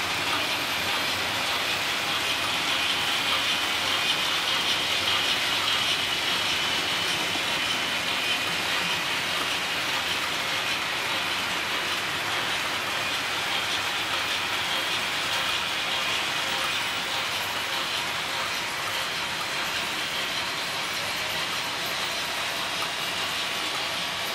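Märklin model trains running on the layout: a steady whirring and rattling of small locomotive motors, gears and metal wheels on the track, a little louder in the first several seconds and easing off later.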